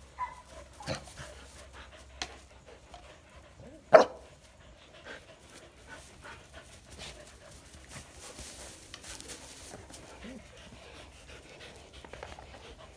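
Dogs panting while they scramble over loose hay, with rustling. About four seconds in there is one short, loud, sharp sound.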